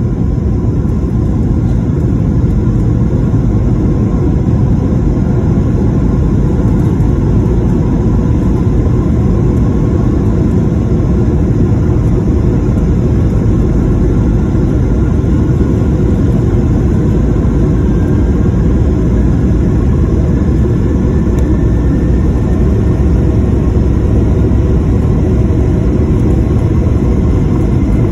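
Airliner jet engines heard inside the cabin: a loud, steady rumble as the plane accelerates down the runway on its takeoff roll, with a faint whine that rises slowly in pitch from about a third of the way in.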